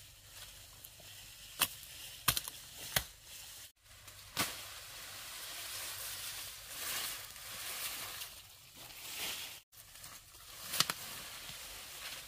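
Grass being cut by hand with a blade: a few sharp chops, and in the middle a longer stretch of rustling and swishing as the stalks are cut and moved.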